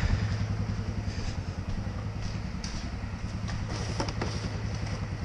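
ATV engine running at low speed, a steady low putter that eases slightly right at the start, with a few light knocks near the middle.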